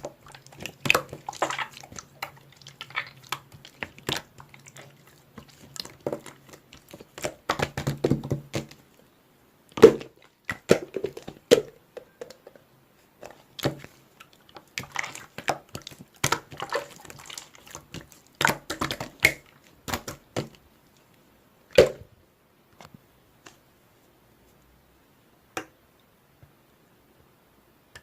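Blue slime being squished and pressed by hand: irregular wet clicks, pops and crackles in clusters, thinning to a few isolated clicks about three-quarters of the way through.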